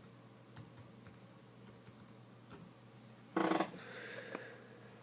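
Faint scattered clicks of trading cards being handled and shuffled. A brief loud burst of a person's voice about three and a half seconds in.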